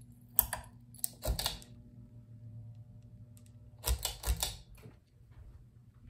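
Ceiling fan pull-chain switch being pulled in two bouts, sharp clicks with the metal bead chain rattling, about a second in and again near four seconds, as the fan is started. A low steady hum runs underneath.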